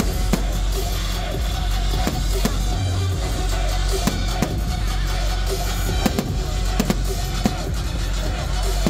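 Music playing throughout, with scattered sharp bangs of fireworks bursting, several in quick succession in the second half.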